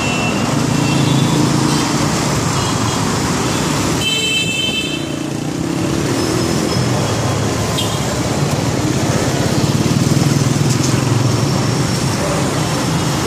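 Busy road traffic: vehicle engines running close by, swelling and easing, with short horn toots about four seconds in.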